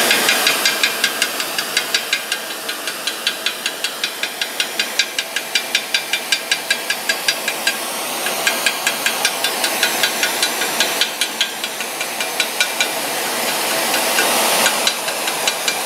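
Handheld gas torch flame hissing steadily as it heats a cast-iron exhaust manifold, the preheat before welding a crack. A rapid, even ticking of about three clicks a second runs under the hiss.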